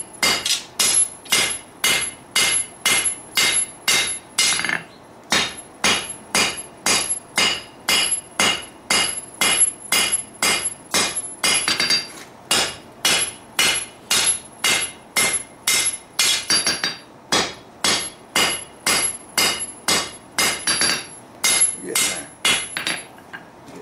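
Hand hammer striking red-hot steel of a sword blade on an anvil, about two blows a second, each with a bright metallic ring; the rhythm breaks briefly a few times. This is hand forging, thinning and tapering the blade.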